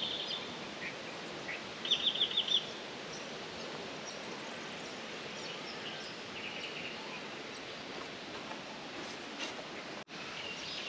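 Bird chirps over a steady outdoor background hiss: a quick run of high chirps about two seconds in, a shorter run a few seconds later and scattered single chirps. The sound drops out for an instant near the end.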